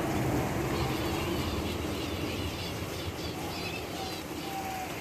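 Small aviary birds chirping on and off over a steady low rumble, with a short thin whistled note near the end.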